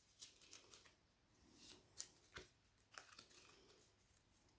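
Tarot cards being handled and shuffled: faint scattered card rustles and clicks, a few sharper snaps about two seconds in.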